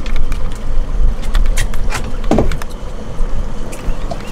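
Steady low rumble of wind and boat noise on an offshore fishing boat, broken by a few sharp clicks from the rod and reel as an angler fights a fish. About two seconds in there is a short falling vocal sound.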